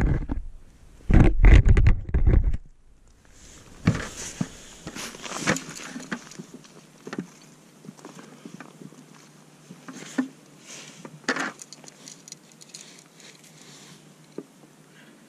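About two and a half seconds of loud rumbling on the microphone, then scattered light taps, crackles and rustles as a man handles a short ice-fishing rod over the hole and freshly caught smelts flop on the snowy ice.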